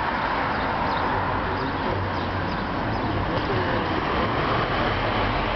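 Steady background noise with faint voices in it.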